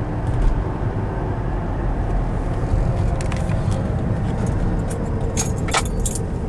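Steady low road-and-tyre rumble inside the cabin of a moving 2010 Ford Fusion Hybrid. A few brief light rattles come around the middle and again near the end.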